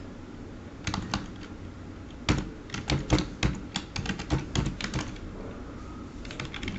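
Computer keyboard typing in bursts of quick keystrokes, with a longer run in the middle, as an IP address is entered into a config file.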